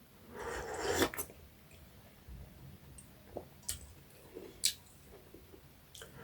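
Close-up eating sounds: wet chewing and squelching of fish and rice, a noisy swell in the first second, then a few sharp clicks scattered through the rest.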